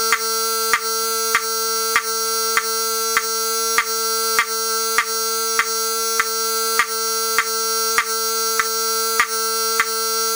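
Wheelock 7002T fire alarm horn-strobe sounding a continuous buzzy horn tone, with a sharp click about every 0.6 seconds. It is running on 15 volts instead of its rated 24, and is not as loud as expected.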